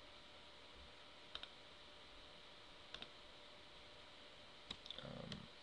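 Computer mouse clicks over quiet room tone: a few faint single clicks about a second and a half apart, one of them doubled, as points of a curve are picked one by one. A brief soft, low sound comes near the end.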